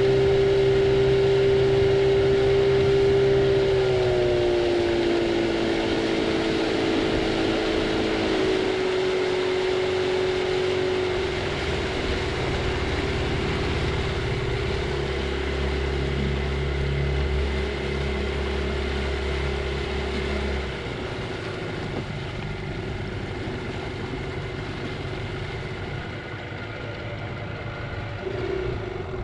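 Yamaha 25 hp outboard motor running at speed, then throttled back: about four seconds in its pitch slides down, and it settles into a lower, quieter running as the boat slows off the plane.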